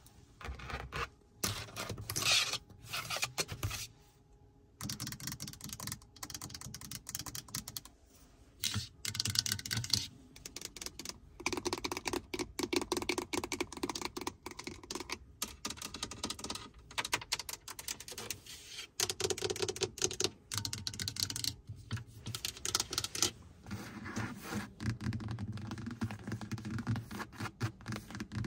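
Rapid fingernail tapping on a car's interior surfaces, clicking like typing with a few short pauses: the plastic overhead console, a plastic drink cup in the cupholder, and the leather centre armrest.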